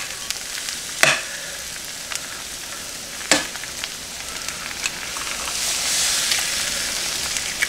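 Bacon, hash browns and eggs sizzling on an electric nonstick griddle, with two sharp taps as an egg is cracked. Near the end the sizzle swells as the fresh egg lands on the hot surface.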